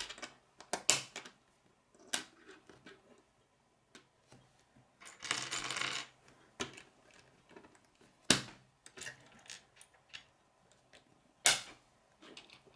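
K'nex plastic rods and connectors clicking as they are snapped together and knocking on a wooden table, in scattered sharp clicks with a clatter lasting about a second around the middle.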